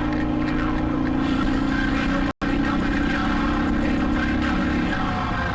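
Motorcycle engine running steadily at cruising speed over road and wind noise; the sound cuts out completely for a split second a little over two seconds in.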